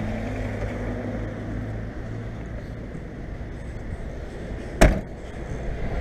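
The boot lid of a BMW 525tds slammed shut once, a single sharp bang about five seconds in, over a steady low rumble.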